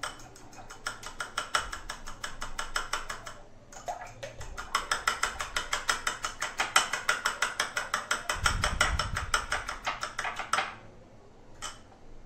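Egg being beaten with salt in a small ceramic bowl with a spoon: rapid, even clinks of the spoon against the bowl. They pause briefly about four seconds in and stop near the end.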